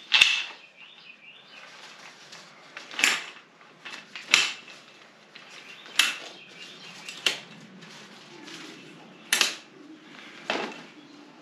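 Cliq compact folding camping chair being set up: its metal frame clacks and clicks sharply several times, a second or two apart, with fabric rustling between as the seat is pulled over the frame.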